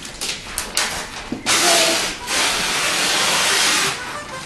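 Gift wrapping paper being torn off a box by hand: a few short rips, then a long tear lasting about two and a half seconds.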